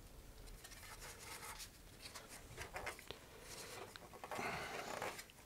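Faint scraping and rubbing with a few light clicks: gloved fingers working inside the aft end of a fiberglass rocket body tube, shifting the motor mount's centering ring. A longer scrape comes near the end.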